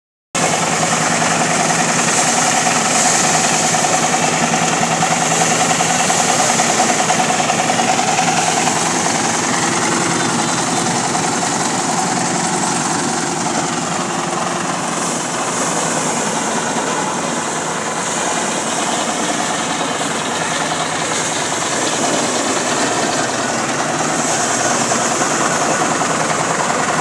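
An engine running steadily without a break, a constant mechanical hum.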